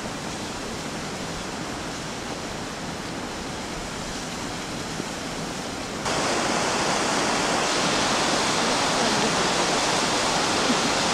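Steady rushing of a mountain stream, an even wash of water noise with no distinct events. It turns louder about six seconds in.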